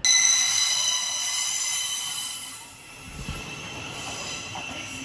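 Thameslink Class 700 electric train moving through a curved underground platform, with a high squeal in several steady tones. The squeal is loudest at first and fades after about two and a half seconds, leaving a fainter steady tone.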